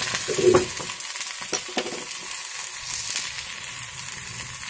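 Sliced ivy gourd sizzling as it fries in oil in a pan, stirred with a wooden spatula that clicks and scrapes against the pan now and then. The sizzle is loudest in the first second.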